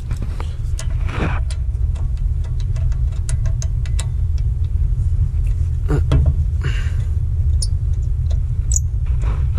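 A steady low rumble, with faint scattered metal clicks and clinks as the driveshaft's U-joint flange is worked by hand against the axle's pinion flange to line up the bolt holes.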